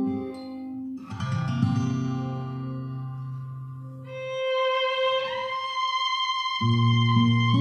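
Instrumental music with long held notes, played through a V1 Bluetooth hybrid tube amplifier and its speakers. The low notes drop out for about two seconds past the middle, then come back in.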